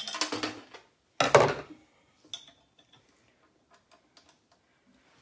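Metal parts of a heat press knocking and clanking as an attachment is lined up and fitted back on: two louder clunks in the first second and a half, then a run of small clicks and taps.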